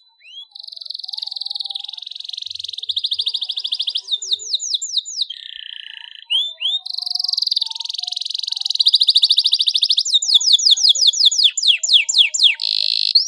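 Domestic canary singing: long, rapid trills broken by runs of quick sweeping whistles, with a lower, slower phrase near the middle.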